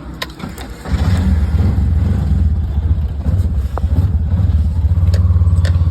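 Auto rickshaw's small engine running with a low, rapid pulsing beat, coming in suddenly about a second in.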